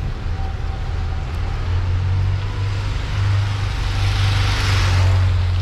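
Car driving on a rain-wet road: a steady low engine and road rumble, with a hiss of tyres on wet tarmac that swells up about three and a half seconds in and peaks near the end.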